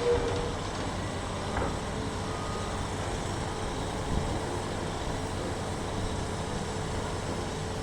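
Heavy construction drilling machine's engine running steadily, a continuous mechanical rumble with a faint steady whine and a couple of light knocks.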